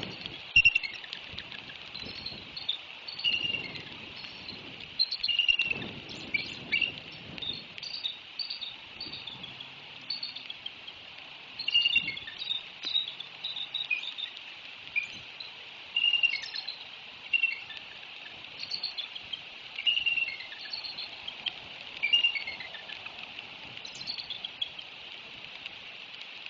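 Birds chirping in short repeated phrases, often a quick falling run of notes, every second or two, over a steady high hum of insects.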